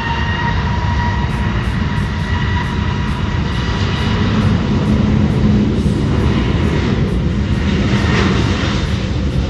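ANA Airbus A321's twin jet engines at takeoff power on the takeoff roll: a loud steady rumble with a high whine that has just finished spooling up and now holds steady. A rougher swell of engine noise comes near the end.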